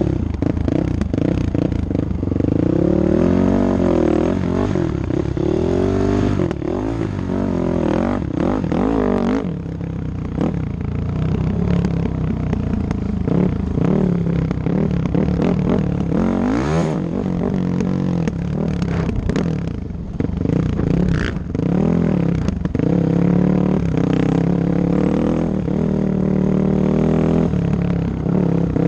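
Dirt bike engine under way over rough ground, its pitch climbing and dropping again and again as the throttle is opened and closed.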